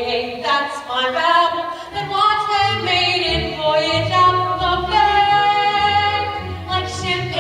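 Singers performing a number from a stage musical, several voices holding and moving between sung notes. A low bass part joins about two seconds in.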